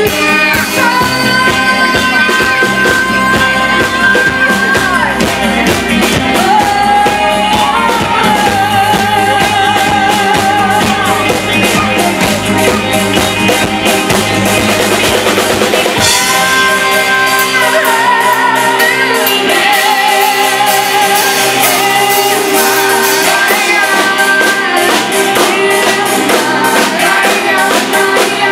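Live rock band playing loudly: electric guitar, drum kit and keyboards, with a singing voice. About halfway through, the deep low notes drop out while the melody carries on.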